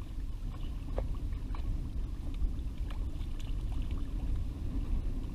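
Low, steady wind rumble on the microphone over water lapping against the side of a small fishing boat, with a few faint splashes and knocks.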